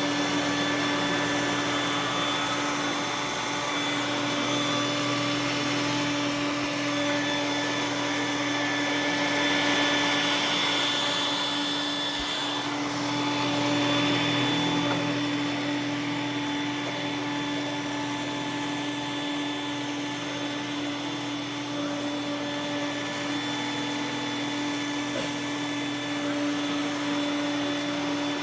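Roomba s9 robot vacuum running steadily: a constant motor hum with a fixed high whine over an even rush of suction, swelling a little about halfway through.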